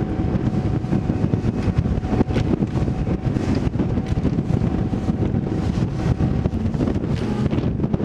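Bass boat running fast through rough waves: heavy wind buffeting the microphone over the drone of the 250 hp outboard and rushing water, with irregular knocks as the hull slaps the waves.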